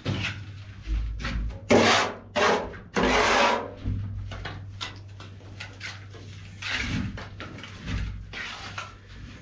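Plastering trowel scraping and spreading wet cement render across a concrete ceiling in several rough strokes, the loudest about two to four seconds in, with weaker strokes near the end. A steady low hum runs underneath.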